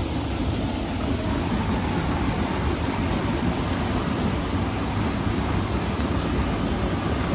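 Small wooden river boat's motor running steadily while the boat travels.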